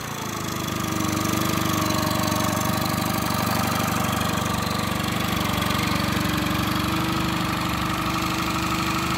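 Yamaha F15 two-cylinder four-stroke outboard with its cowling off, running in a test tub of water. It settles in the first second and then idles steadily at an even pitch.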